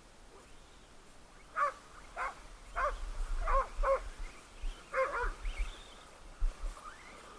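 Dogs barking at a radio-controlled car they are chasing: about half a dozen short barks between about one and a half and five and a half seconds in.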